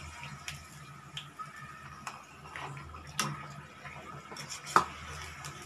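A wheat-flour puri sizzling as it deep-fries in hot oil in an iron kadhai, with a wire-mesh skimmer clicking and scraping against the pan. One sharper metal clink comes near the end, and a steady low hum runs underneath.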